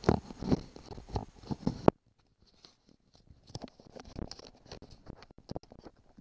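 Irregular clicks, knocks and light rattles of hands handling a lawnmower's rear wheel and metal hand tools. The sound cuts out abruptly about two seconds in, then resumes as fainter scattered clicks.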